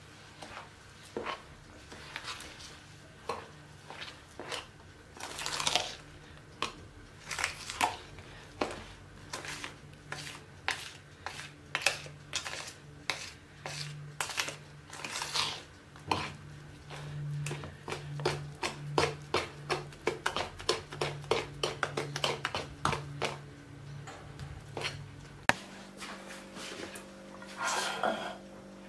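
A spoon stirring and beating cake batter in a plastic mixing bowl, clicking and scraping against the bowl in quick, regular strokes.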